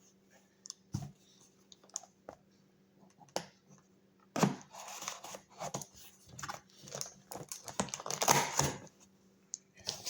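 Shipping package being handled and opened: crinkling and tearing of the wrapping with scattered clicks and knocks, loudest about four and a half seconds in and again around eight seconds in.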